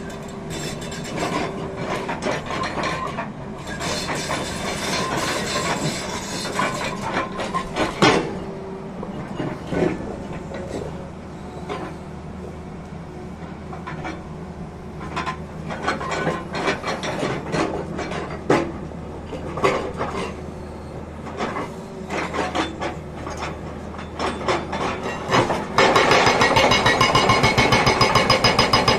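Tata Hitachi excavator's diesel engine running with irregular knocks and clatter of rock and steel as the machine works and repositions. Near the end its hydraulic rock breaker starts hammering, a loud, rapid and even train of blows into rock.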